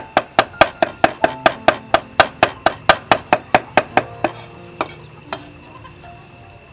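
Cleaver chopping rapidly on a thick round wooden chopping block, about four to five even knocks a second for roughly four seconds, then two last single chops.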